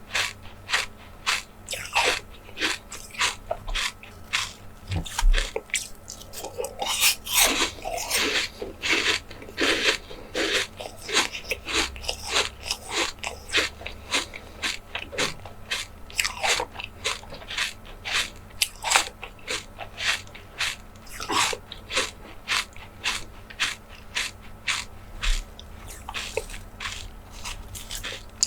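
Close-miked eating: repeated biting and chewing, heard as a steady run of sharp, crisp clicks about two or three a second.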